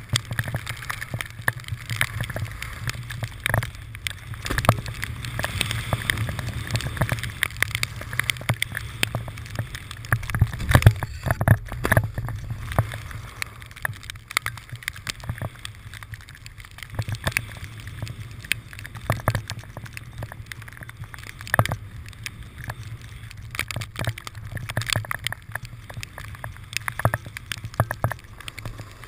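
Snowboard sliding and scraping over snow, with a steady low rumble of wind on the camera microphone and frequent sharp knocks from handling the handheld camera.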